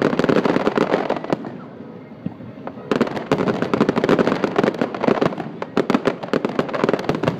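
Aerial fireworks bursting in a dense run of rapid crackling pops and bangs. It thins out about a second and a half in, then comes back thick at about three seconds.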